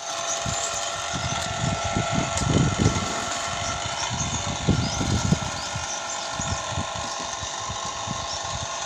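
Motorised material hoist running with a steady whine, with irregular low rumbling gusts over it.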